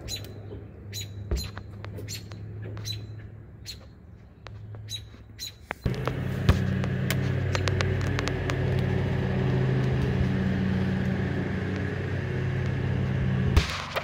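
Short thin peeps from songbird nestlings, repeating every half second or so over a faint hum. About six seconds in they give way to a louder, steady low motor hum.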